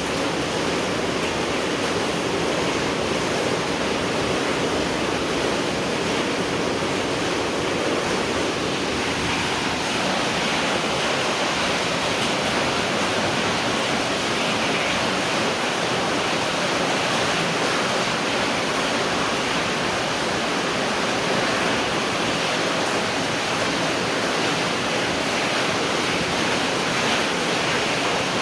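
Steady rain falling, an even hiss of many drops with no single impacts standing out.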